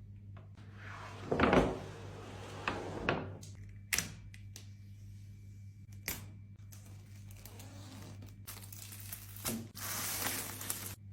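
Laptop box and packaging being unpacked: rustling and crinkling of wrapping, a few knocks of cardboard, and a longer tearing sound near the end.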